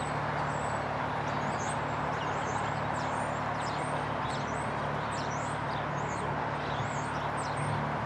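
Steady low drone of a pair of GE Evolution-series diesel locomotives hauling a freight train toward the listener, over a broad rumble of the approaching train. Small birds chirp repeatedly over it in short high notes.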